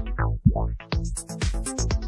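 Electronic dance music playing through a Reloop IQ2+ DJ mixer with its master auto filter effect on, synced to the tempo. The treble sweeps open and closed in time with the beat.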